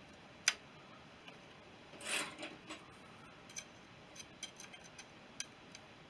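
Small metal parts and tools being handled: one sharp metallic click about half a second in, a brief scraping rustle around two seconds, then a scatter of light ticks and taps.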